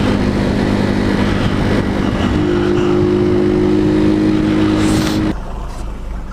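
Motorcycle engine running at a steady cruise under a noisy rush, its note stepping up slightly about halfway through. It cuts off abruptly about a second before the end, leaving a quieter low hum.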